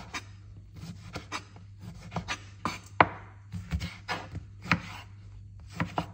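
Kitchen knife cutting the peel off a lemon on a wooden cutting board: a string of irregular knocks and scrapes as the blade cuts through and strikes the board, the loudest about three seconds in.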